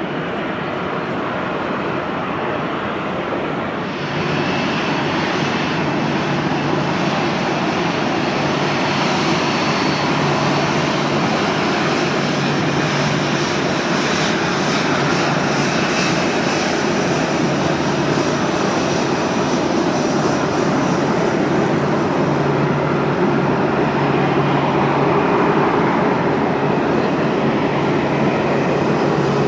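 Jet airliner engines running: a steady noise with faint high whining tones. It steps up about four seconds in, then slowly grows louder.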